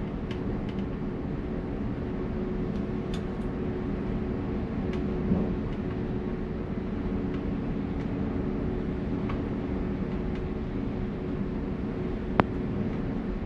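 Steady background machinery hum with a constant low tone, a few faint ticks, and one sharp click near the end.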